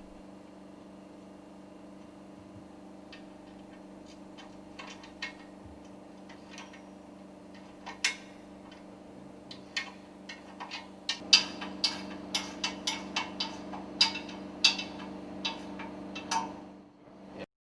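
Scattered metallic clicks and clanks of tools and steel parts being handled, sparse at first and busy in the second half, as a work table is fitted around an engine's piston rod. A steady machinery hum runs underneath, and the sound cuts off just before the end.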